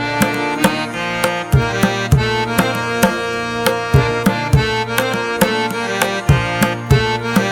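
Background instrumental music: sustained pitched notes over a regular hand-drum beat, about two strokes a second.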